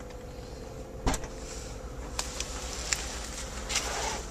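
Steady low hum inside a car cabin, broken by a single sharp knock about a second in. Light clicks and rustles follow as a handheld camcorder is moved around.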